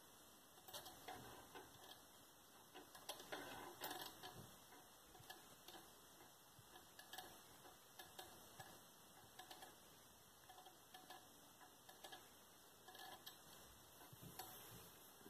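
Faint, irregular light ticking and scraping from a homopolar motor: a bent copper wire spinning on a AA battery, its contacts rubbing and tapping on the battery's top terminal and the disc magnet at its base.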